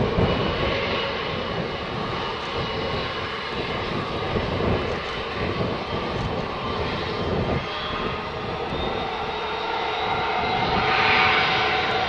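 Airbus A320-232's twin IAE V2500 turbofan engines running at low taxi thrust as the airliner taxis and turns: a steady jet whine over a low rumble, growing a little louder near the end.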